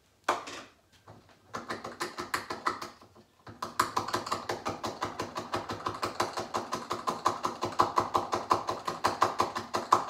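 Hand-held citrus zester rasping rapidly over orange or lemon peel: quick, even scraping strokes, about six or seven a second, with a short pause about three seconds in.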